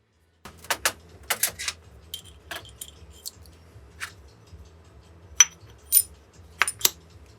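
Small metal starter-motor parts clinking and tapping against each other and the bench as they are handled, a dozen or so sharp clicks, a few with a short high ring, the loudest in a cluster near the end. A faint steady low hum runs underneath.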